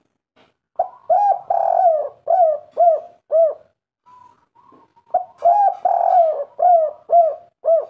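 Spotted dove (derkuku) cooing its 'kuk 3' call twice. Each call opens with a couple of short notes, swells into one longer drawn-out coo, then ends in three short, evenly spaced coos.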